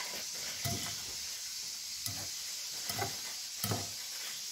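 A perforated metal ladle stirring and pressing moist, sauce-soaked crumbled steamed dough in a ceramic bowl: a few short wet strokes about a second apart over a steady hiss. The dough is being moistened with its sauce so it can soak it up.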